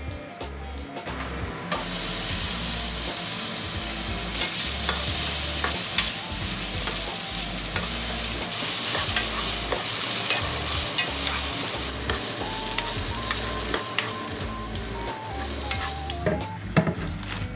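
Julienned carrots sizzling in sesame oil in a frying pan while a wooden spoon stirs them, with light clicks and scrapes of the spoon against the pan. The sizzle starts suddenly about two seconds in and dies down near the end.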